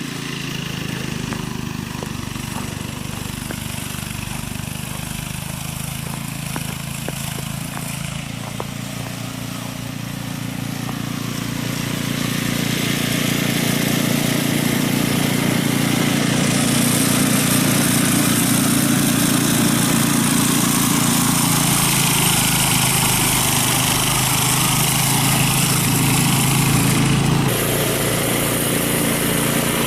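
Snowblower's small gasoline engine running steadily, growing louder about a third of the way in and easing off slightly near the end.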